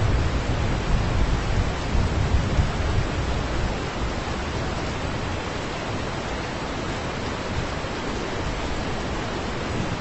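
Heavy rain pouring steadily in a thunderstorm, with a low rumble of thunder in the first few seconds that fades away.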